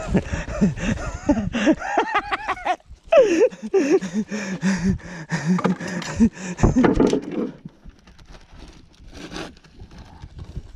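Excited human voices, exclamations rather than clear words, over scattered knocks on the wooden boat. They die down about seven and a half seconds in, leaving faint clicks and knocks.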